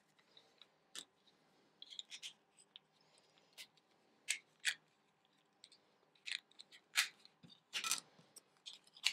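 Scattered small plastic clicks and taps as the lid is worked off a two-AA battery holder and AA batteries are pressed into it, with a short scrape about eight seconds in.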